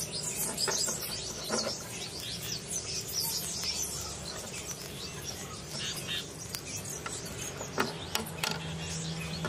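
Small birds chirping repeatedly in quick, high notes, over a steady low hum that grows louder near the end.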